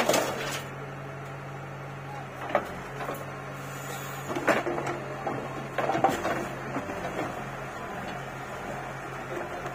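Backhoe loader's diesel engine running steadily under hydraulic work. Soil pours from the bucket into a tractor trolley at the start, and there are a few thuds as the bucket swings back and bites into the ground, loudest about halfway through.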